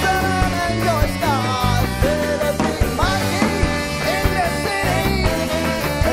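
Live ska-rock band playing: drums and electric guitars and bass under a trombone and a male lead vocal, with gliding notes in the melody.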